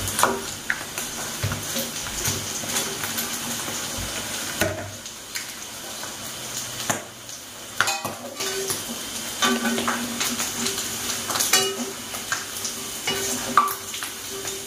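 Grasshoppers frying in oil in a pan, sizzling steadily, with repeated knocks and scrapes of a utensil stirring them against the pan.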